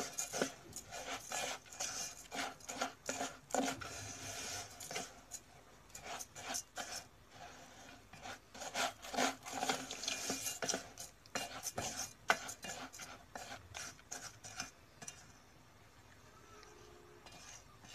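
Plastic spatula stirring rice grains and broken spaghetti pieces in oil in a metal pot: a run of quick, irregular scraping strokes against the pot that grow sparse in the last few seconds. The rice is being turned so that it coats with oil and salt and doesn't stick to the bottom.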